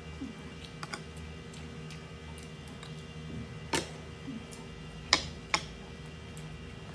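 Wooden chopsticks clicking against ceramic bowls: a few sharp clicks, one about a second in, one near four seconds, and two quick ones just after five seconds. Chewing between the clicks, over a steady low hum.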